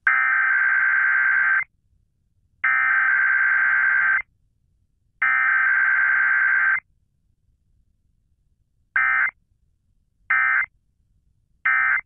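Emergency Alert System SAME data tones on a radio broadcast's weekly test. Three long, buzzy digital header bursts of about a second and a half each, roughly a second apart, are followed by three short bursts, the end-of-message code.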